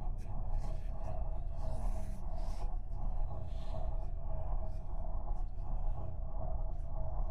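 Faint, short, irregular scratching of drawing strokes over a steady low hum.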